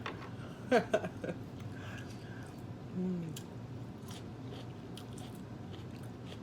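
Close-miked chewing and mouth sounds of a person eating takeout food, with a cluster of sharp smacks about a second in and a brief hum about three seconds in.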